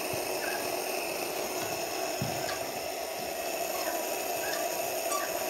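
Steady mechanical whir of a Bosch CP1 common-rail diesel supply pump from a Chevrolet Captiva being turned for a test, with a few faint light ticks.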